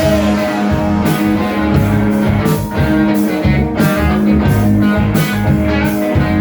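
Live rock band playing an instrumental passage between vocal lines: guitar over a steady bass line and drums.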